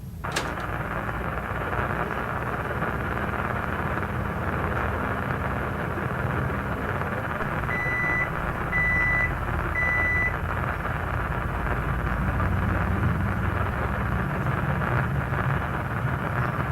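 Microwave oven running with a steady hum, after a sharp click just after the start; about eight seconds in it gives three short electronic beeps, about a second apart.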